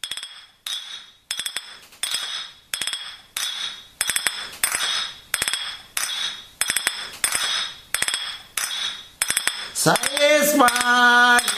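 Jingle beat of a spoon clinking against a mug, about three strikes every two seconds, each with a short bright ring. Near the end a voice comes in over the clinking with a drawn-out sung call.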